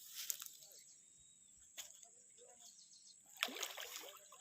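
Water splashing in three short bursts, the loudest near the end, as a hooked catla thrashes at the surface. A steady high insect drone runs underneath.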